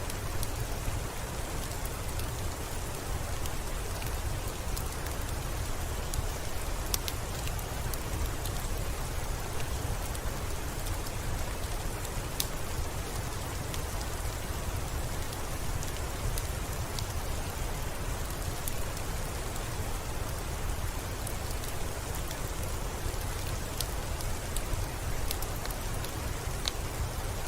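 Steady rain pattering on a window pane, with scattered sharp ticks of single drops and a steady low rumble underneath.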